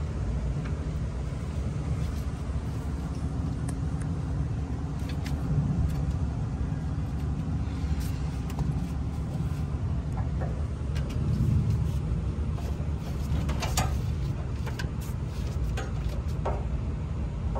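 A steady low rumble, with scattered light clicks and taps as gloved hands push wire connectors back onto a compressor's terminals.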